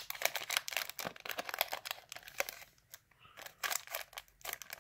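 Foil wrapper of a Yu-Gi-Oh! booster pack being torn open by hand: a dense run of crinkling, tearing crackles that thins out about halfway through, the wrapper being hard to open.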